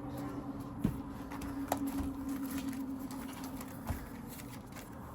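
Handling of a cash-envelope binder and bills: a few soft clicks and taps over a steady low hum that fades out about four seconds in.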